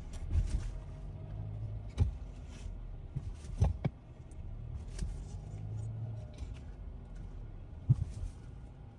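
Car idling and creeping at low speed, heard from inside the cabin as a steady low hum, with a few short sharp clicks or taps scattered through.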